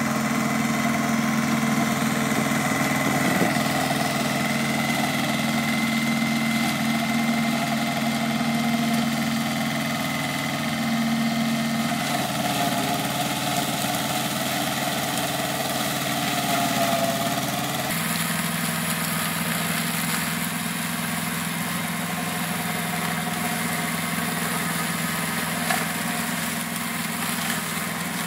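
Goldoni compact tractor engine running steadily while powering a flail mower through long rough grass. The engine note shifts abruptly about a third of the way in and again about two thirds in.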